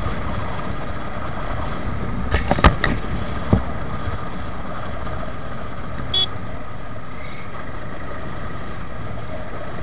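Suzuki Gixxer motorcycle riding along at steady speed, engine running under wind and road noise. A few sharp knocks come between two and a half and three and a half seconds in, and a short horn toot about six seconds in.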